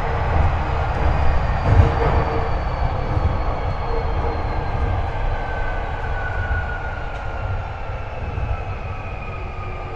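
Under-floor running sound of a Hankyu 8300 series electric train over a motored bogie: the Toyo IGBT-VVVF inverter and induction traction motors give a whine that falls steadily in pitch as the train slows for a station, over a rumble of wheels on rail. The recordist notes this bogie and car for unusual sounds and unusually high-pitched inverter modulation.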